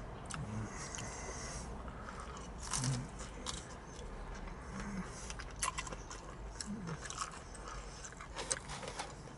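A person biting and chewing a piece of fried whiting fish with ketchup: soft mouth sounds with scattered short smacks and clicks, and a few brief low hums.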